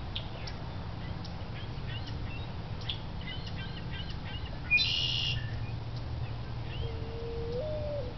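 Birds calling at dawn: scattered short chirps, one loud harsh squawk about five seconds in, and a low hooting call near the end, over a steady low rumble.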